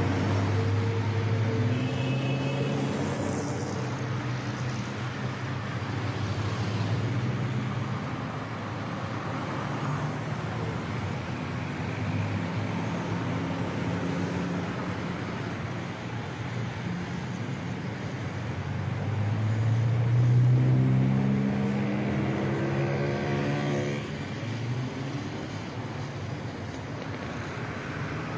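Bus engines and street traffic. One bus engine grows louder and rises in pitch about two-thirds of the way through, as a bus pulls away.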